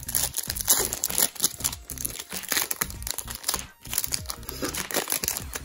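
Foil wrapper of a hockey card pack crinkling and tearing as it is opened by hand: a dense run of crackles with a short pause near the end.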